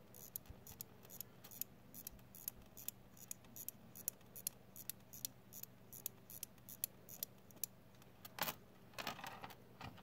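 Vostok mechanical watch being hand-wound at the crown: a run of light, quick clicks from the winding ratchet, about three to four a second in short groups. Near the end, a louder jingling rattle as the watch and its chain are moved.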